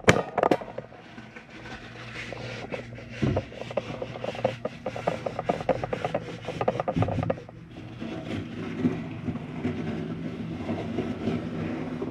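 Scraping and rubbing against the rusted steel walls of a metal firebox, with a quick run of small clicks and knocks, settling about seven seconds in into a steadier, lower rubbing rumble.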